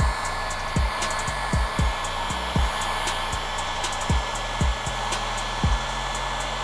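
Handheld hair dryer blowing steadily with a thin whine while hair is combed through under it. Background music with a thumping bass-drum beat plays underneath.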